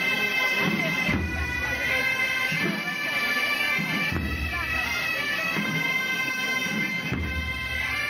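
Bagpipe tune, most likely Galician gaita, playing over a steady drone, with a low thud about every three seconds.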